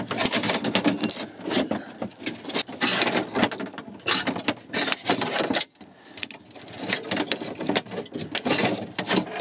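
A Land Rover Freelander window regulator, the failed cable type with rusted, snapped cables, rattling and clattering against the door's inner panel as it is worked out of the door. It makes a dense run of short metallic clicks and knocks, with a brief lull just past the middle.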